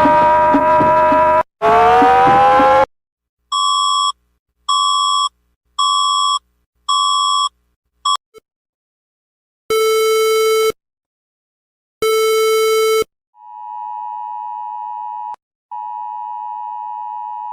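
A string of electronic emergency alert tones. A loud horn-like tone breaks off and then sweeps upward. Four short high beeps follow about a second apart, then two one-second buzzes, and then a long steady tone with a brief gap.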